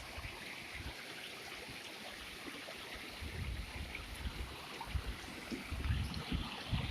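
A creek running over rocks, a steady rush of water. From about three seconds in, irregular low rumbles and knocks come over it.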